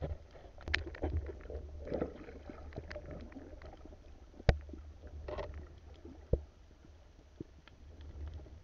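Muffled underwater noise through a camera's waterproof housing: a low rumble of moving water with scattered sharp knocks and clicks, the loudest a single knock about four and a half seconds in.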